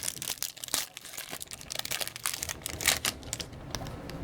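Plastic foil wrapper of a trading-card pack crinkling and tearing as it is opened: an irregular run of sharp crackles.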